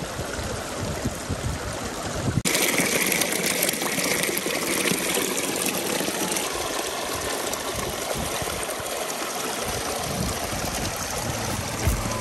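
Small mountain stream running and splashing over rocks in a little cascade, a steady rush of water. About two seconds in it cuts suddenly to a louder, brighter rush, as of the falling water heard up close.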